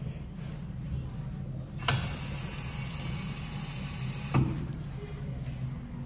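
Flush valve on an American Standard urinal flushing: a click about two seconds in, then water rushing with a hiss for about two and a half seconds, cut off with a thump as the valve shuts.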